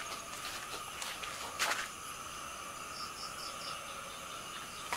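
A steady high chorus of night insects, crickets among them, with four quick high chirps about three seconds in. A single brief knock or rustle sounds a little under two seconds in.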